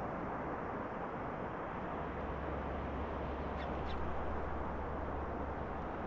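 Steady wind rushing over the microphone with a low rumble of gusts, and a bird giving two short calls a little over three and a half seconds in.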